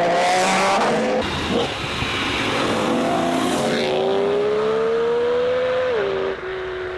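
BMW M3 4.0-litre V8 exhaust at high revs, the engine note climbing steadily for about two seconds as it accelerates, then dropping suddenly near the end.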